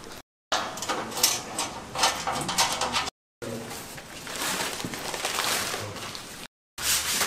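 Clicks, knocks and scraping of sheet-metal panels and bolts being handled and screwed together while assembling a sandblasting cabinet. The sound comes in three short stretches cut apart by brief dead silences.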